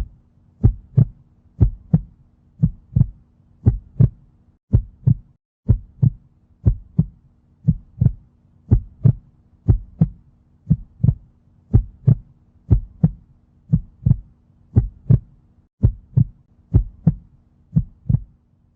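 Heartbeat sound effect: a steady lub-dub, two low thumps close together repeating about once a second, over a faint low hum.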